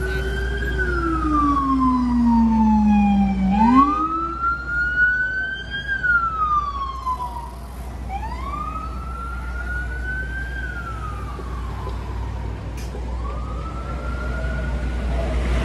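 Emergency vehicle siren wailing in slow rising and falling cycles, about one every four to five seconds, over a steady low traffic rumble. A second, lower-pitched siren wails with it and drops out about four seconds in.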